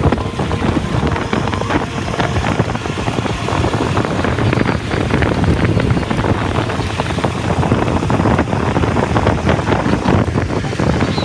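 Loud wind buffeting the microphone over a running vehicle.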